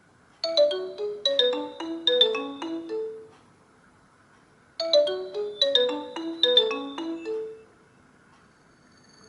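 Nokia Asha 302 ringtone playing: a short, quick melody of bright notes, played twice, about three seconds each, with a pause between. A different tone with held notes begins to fade in at the very end.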